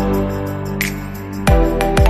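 Background music: sustained synth and instrument notes over a slow beat, with a deep drum hit about one and a half seconds in.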